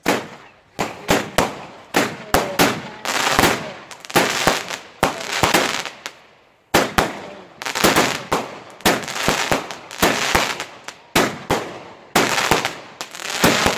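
Fireworks going off in a rapid string of sharp bangs, several a second, each with a short ringing tail, with a brief lull about six seconds in before the bangs resume.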